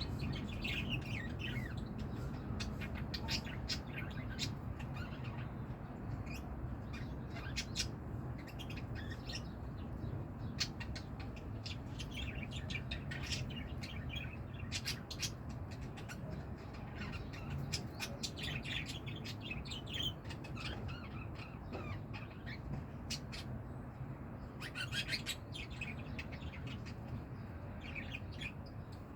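Lovebirds chirping and chattering in short, scattered chirps and squawks with sharp clicks, over a steady low background hum.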